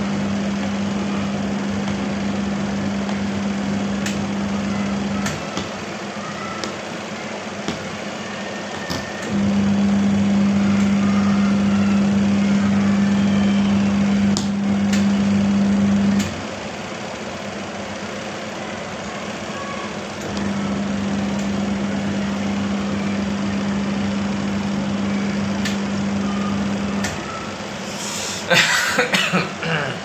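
Realme TechLife 7.0 kg semi-automatic washing machine on its wash cycle: the wash motor hums in three runs of about five to seven seconds each, with a pause of about four seconds between runs as the wash tub's drive stops and reverses. A brief rustling clatter comes shortly before the end.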